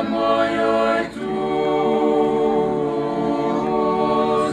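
A small group of men singing a cappella in close harmony, Dalmatian klapa style. A short phrase breaks off about a second in, then the voices hold one long chord.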